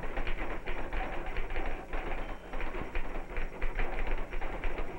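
Rapid, continuous clatter of typewriter keys, an unbroken run of quick irregular clicks.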